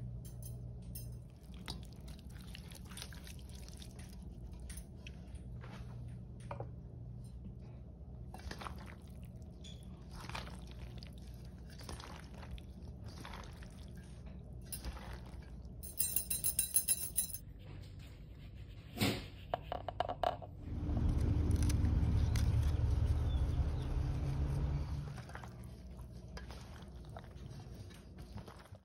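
Cooked cavatappi pasta being tossed into sausage and peppers in a stainless steel pan with a silicone spatula: a run of soft scrapes, squelches and clinks against the pan over a low steady hum. A quick rattle of ticks comes about two-thirds of the way through, then a louder steady rushing stretch of several seconds.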